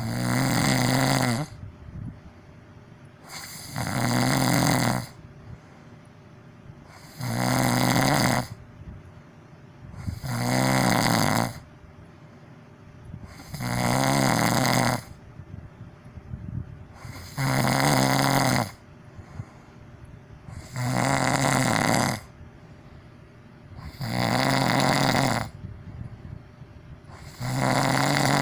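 A person snoring loudly and regularly: nine buzzing snores, each about a second and a half long, coming every three to four seconds with quiet breathing gaps between.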